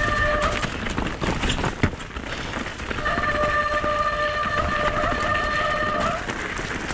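Mountain bike rolling fast down a wet, rocky gravel track: tyre rumble and rattling of the bike, with a sharp knock from the chain about two seconds in. A steady squealing tone from the wet disc brakes sounds briefly at the start and again for about three seconds later on.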